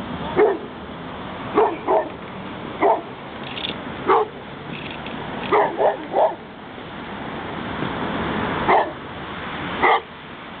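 Dog barking repeatedly: about ten short barks, single or in quick runs of two or three, with pauses of a second or more between the runs.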